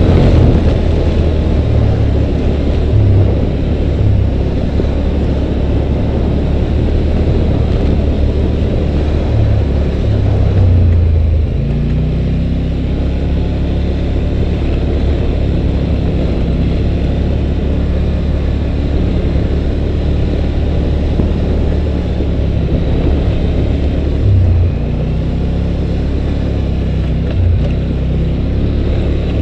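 2011 Polaris Sportsman 850 Touring ATV's 850 cc parallel-twin engine running while riding a gravel trail, its pitch shifting as the speed changes about a third of the way in and again past the middle, with a few brief low bumps from the trail.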